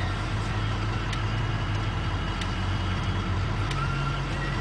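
Steady low engine rumble under a noisy hiss, with faint ticks about once a second.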